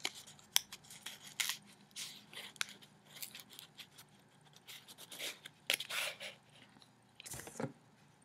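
A small paper pencil-topper prize being handled and fitted onto a pencil through its slits: faint paper rustling and scraping with scattered light clicks, busiest about six and seven and a half seconds in.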